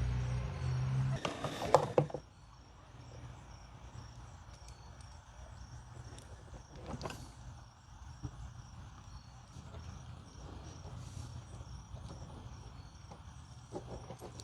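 A low, steady hum that cuts off about two seconds in, followed by a few sharp clicks and knocks, another click about seven seconds in, and faint taps over quiet room tone: small tools and parts being handled at the bench.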